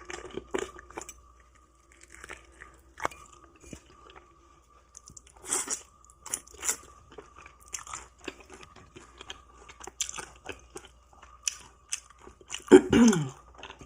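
Crispy fried chicken being bitten and chewed close to the microphone: many short, crisp crunches of the fried coating. A brief vocal sound comes near the end.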